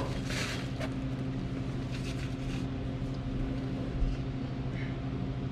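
BMW E46 325i's inline-six engine idling steadily.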